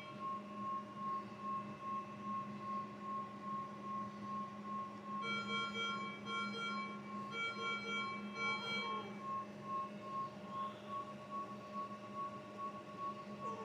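Electronic medical alarm beeping from an infant ventilator: a steady run of short, evenly spaced beeps at one pitch, joined twice by a richer, higher multi-tone beep pattern for a couple of seconds at a time, over a steady low machine hum.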